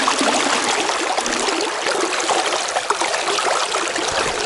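Shallow river current rushing and rippling close to the microphone: a steady wash of flowing water with small splashes.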